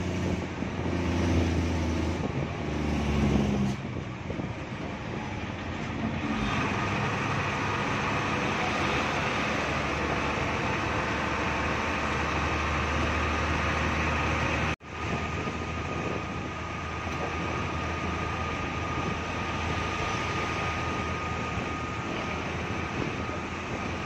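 Bus engine and road noise heard from inside the cabin while driving, a steady drone that is louder for the first few seconds; the sound drops out for an instant about fifteen seconds in, then carries on steadily.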